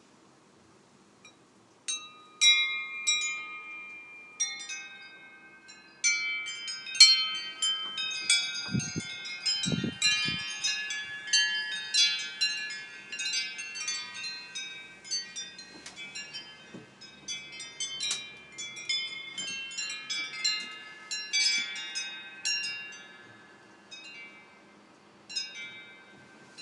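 Garden wind chimes ringing in the breeze: many irregular, overlapping struck tones that start about two seconds in, crowd together through the middle and thin out near the end. A few low thumps come about nine and ten seconds in.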